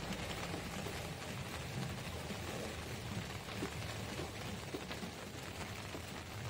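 Steady rain falling on shallow water, a dense patter of drops, with a low steady hum underneath.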